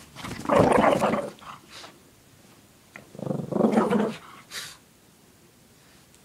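Shih Tzu growling in play as she grabs and shakes a fleece blanket, in two growls about three seconds apart.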